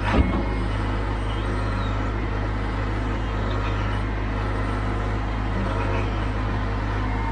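Engine of a heavy earthmoving machine running steadily at work, a deep rumble, with a sharp knock just after the start.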